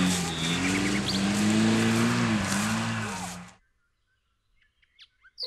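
Isuzu Trooper's engine running as the 4x4 drives, its pitch rising and falling a little over a haze of noise. It cuts off suddenly about three and a half seconds in, leaving silence with a few faint chirps near the end.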